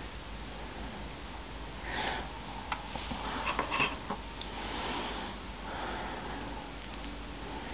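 Soft breathing, a few quiet breaths a second or more apart, with some faint clicks around the middle.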